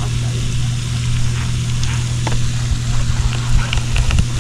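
A steady low hum, with faint scattered clicks and light noise over it.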